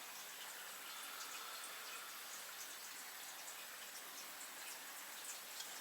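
Quiet room tone: a faint steady hiss with scattered faint ticks.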